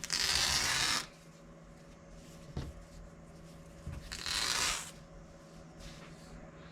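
Old cloth lining being ripped away from an old print: two raspy tears, about a second long at the start and a shorter one about four seconds in, with faint clicks and rustles between.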